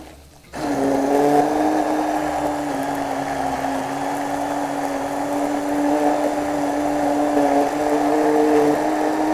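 Hand-held immersion blender running steadily at one speed in a plastic jug, grinding prawn shells in water to draw out a seafood stock. Its motor cuts in again about half a second in, after a brief stop.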